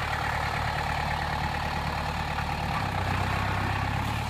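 Land Rover Perentie's diesel engine running steadily at low revs.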